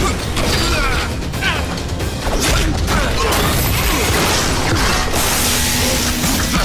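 Action-film fight soundtrack: music mixed with hit, crash and mechanical sound effects.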